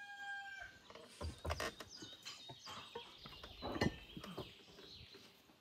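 A rooster's crow ends on a held note at the start. Birds chirp, and a scatter of small knocks and clicks from eating at a table follows, the loudest about a second and a half in and just before four seconds.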